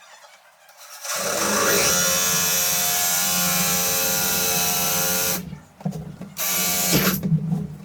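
Power drill with a hole saw bit boring into a wooden door. The motor runs steadily for about four seconds after starting about a second in, stops briefly, then runs again in two shorter, rougher spurts near the end.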